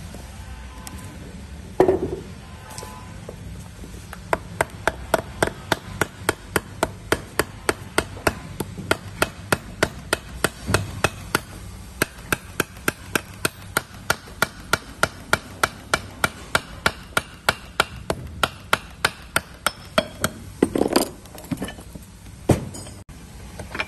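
A hammer tapping rapidly and repeatedly on an electric valve actuator's metal body at the output-shaft flange, about three or four strikes a second, with a few heavier single knocks near the start and near the end.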